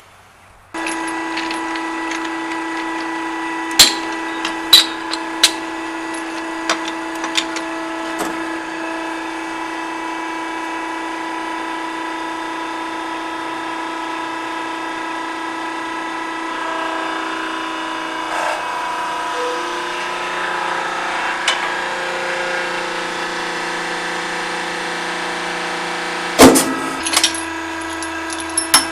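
Hand tools clinking and knocking on metal while hydraulic hoses are being taken off a skid steer's drive motor, a few sharp knocks near the start and a loud cluster near the end, over a steady hum.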